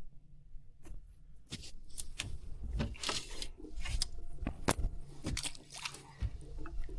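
Irregular handling noises: a string of sharp clicks, clatters and rustles, a few of them louder knocks, over a low rumble.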